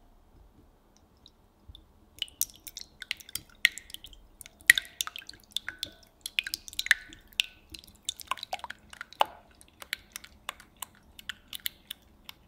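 Wire whisk beating raw eggs in a glass measuring jug: quick, irregular clinks of the wires against the glass with a wet squishing, starting about two seconds in.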